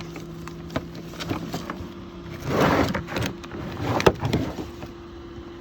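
Handling of an RV's shore power cord and plug at its rear compartment: a rustling scrape of cable being pulled out near the middle, scattered clicks and a sharp clunk about four seconds in, over a steady low hum.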